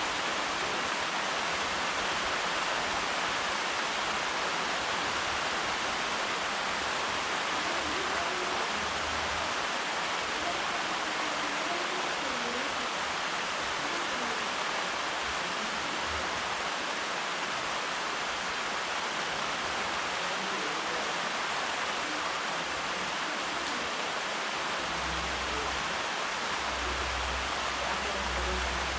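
Steady rainfall, an even hiss that holds level throughout, with a faint low rumble in the last few seconds.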